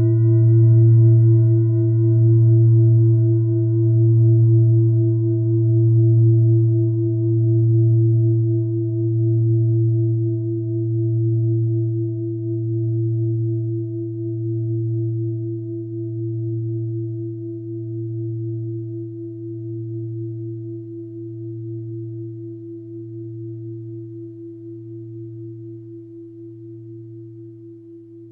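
A mindfulness bell rings out after a single strike, a deep hum with a clear higher tone above it, slowly dying away with a gentle wavering pulse about once a second. Its higher overtones fade out within the first ten seconds or so, leaving the low hum.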